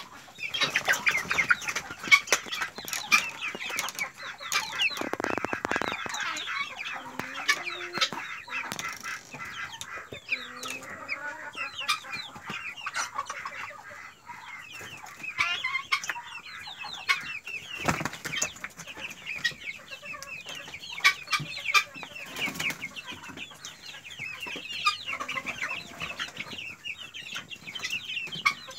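A flock of two-month-old colour bird chickens (young crossbred pullets) clucking and peeping, many short calls overlapping without a break. There is a short rustling flurry about five seconds in, and a few sharp knocks later on.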